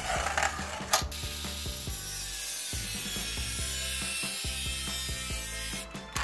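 Small angle grinder with a thin cutting disc scoring a metal sheet along a scribed line: a steady high grinding hiss that starts about a second in and stops just before the end. A couple of short scratches from the scriber come first.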